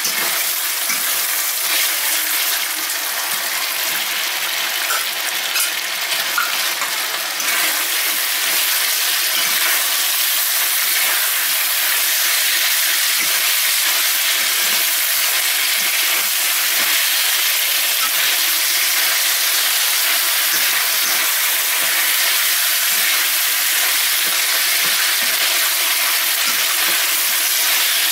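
Beef strips and pineapple chunks sizzling in a stainless steel wok, stirred with a metal spatula: a steady frying hiss that grows a little louder and more even about eight seconds in.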